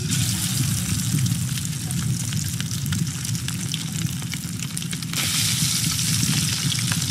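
Battered frog pieces dropped into hot oil in a wok, setting off a sudden, dense crackling sizzle. The sizzle jumps louder again about five seconds in as another piece goes in.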